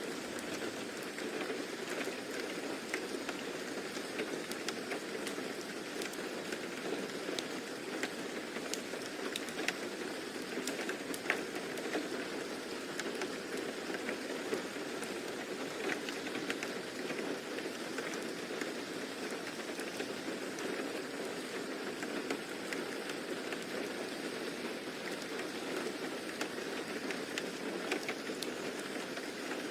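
Steady rain falling, with a dense even patter and scattered sharper drops landing close by.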